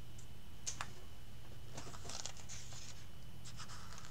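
Pages of a thick comic-book collection being turned by hand: soft paper rustles, with a light tick under a second in and a longer rustle around two seconds in, over a low steady hum.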